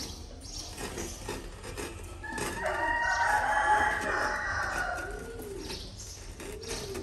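A rooster crowing once, a long call of about three seconds starting a little over two seconds in, over a dove cooing repeatedly.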